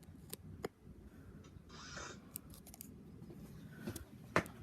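Faint handling noises: a few light clicks and taps and a brief rustle about two seconds in, with a sharper click near the end, over a low room hum.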